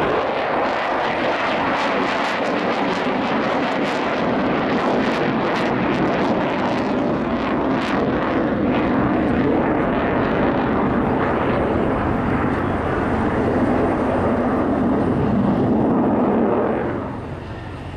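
Sukhoi Su-27 jet fighter's twin AL-31F turbofan engines, loud and steady, with a crackling rasp through the first half. The sound falls away sharply about a second before the end.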